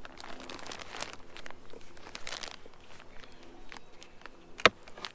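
Metal hive tool scraping and prying at the wooden frames and box of a beehive, with scattered clicks and one sharp knock about four and a half seconds in.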